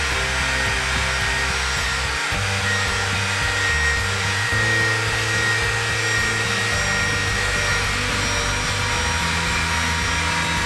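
Background music with a stepping bass line over a steady rushing, rubbing noise from a guitar fretboard being scrubbed clean.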